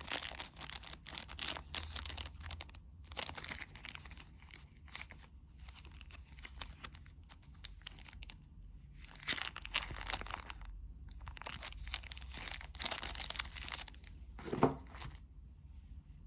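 Close handling noises: irregular rustling and crinkling with rasping, tearing-like strokes and small clicks, then one short knock near the end.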